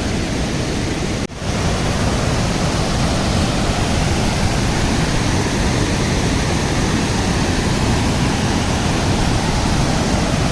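Waterfall: a loud, steady rush of falling water close by, briefly cut off about a second in and then resuming.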